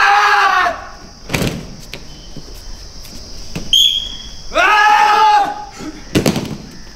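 Judo drill: a drawn-out group shout, a heavy thud of bodies slapping the mats in breakfalls, then a short high whistle blast, and the shout and thud come again. The cycle sets the pace of the exercise.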